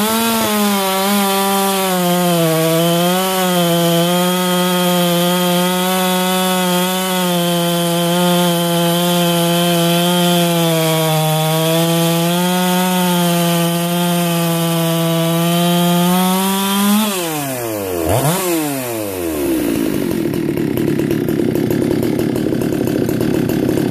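Husqvarna 372XPW two-stroke chainsaw at full throttle cutting crosswise through a large log, its pitch wavering slightly under load. About 17 seconds in the throttle is released and the revs drop, are blipped once, and the saw settles to idle.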